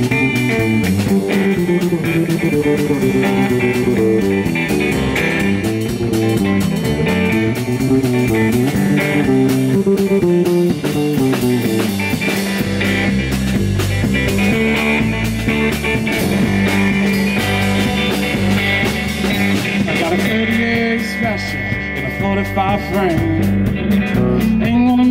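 Live blues band playing an instrumental passage: electric guitar picking a lead line over drums and electric bass, with the bass coming in much stronger about halfway through.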